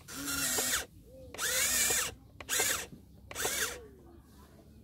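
The electric motors and gear drives of a radio-controlled Volvo model excavator whine in four short bursts as the boom and bucket work into the dirt. The pitch of the whine rises and falls within each burst.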